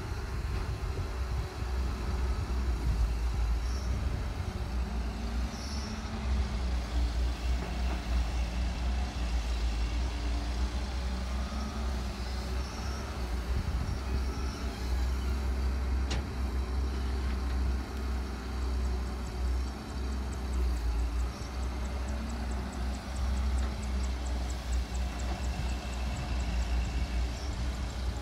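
Caterpillar 320C hydraulic excavator's diesel engine running under load as it digs, a steady low rumble that rises and falls with the work, with one sharp click about halfway through.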